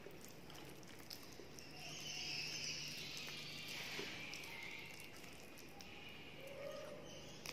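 Fingers mixing soft khichuri on a steel plate, with faint squishing, small clicks against the metal and some chewing, over a low steady hum.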